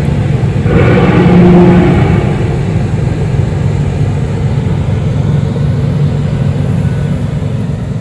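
A loud, steady low rumbling drone with a few held humming tones that shift in pitch and swell about a second in. It is the kind of unexplained sky sound reported as 'strange sounds' heard over cities.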